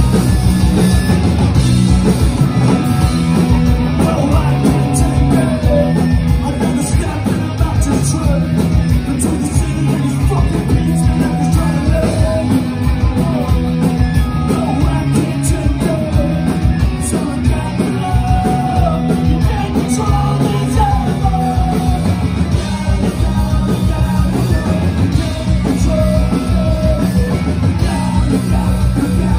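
Punk rock band playing live: distorted electric guitars and drums, with a singer's vocals over them, loud and continuous.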